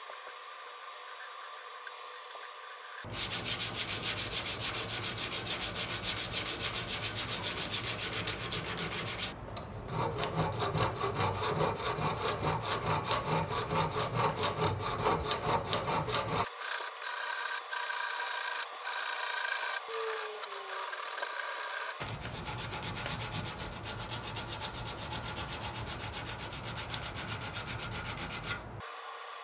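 A rotary tool whines briefly at the start. Then a steel hand file rasps over a metal workpiece held in a vise, in quick repeated strokes.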